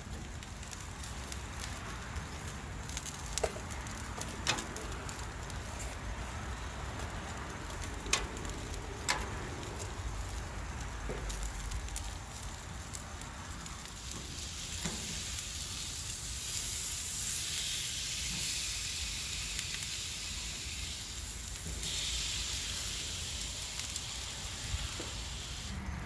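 Tomahawk steak sizzling on grill grates: a steady hiss with a few sharp pops and ticks in the first half. The hiss grows louder and brighter in the second half.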